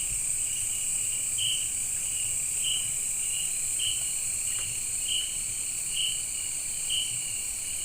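Night-time insect chorus: a steady high-pitched drone, with a cricket-like chirp repeating in short pulses about once or twice a second.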